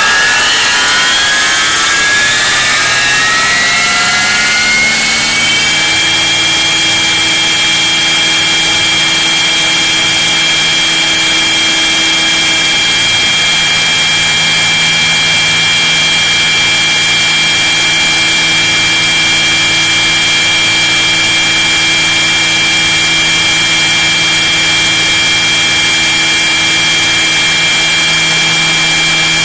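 Model helicopter's motor and rotor heard from inside its fuselage: a whine that rises in pitch as it spools up, then levels off about six seconds in to a steady high whine at constant rotor speed.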